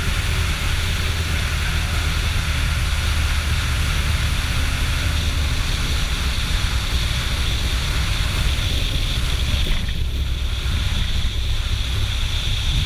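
Steady cockpit noise of a motor glider on final approach with the spoilers out in gusty wind: a deep rumble of airflow and engine, with hiss above it that drops away about ten seconds in.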